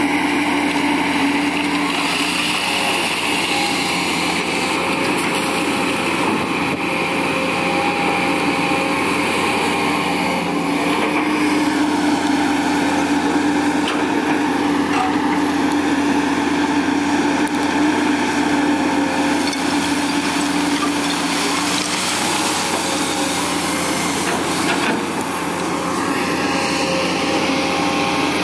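Komatsu PC200 hydraulic excavator's diesel engine running steadily under load, with its hydraulics working the boom and bucket as it digs through rubbish.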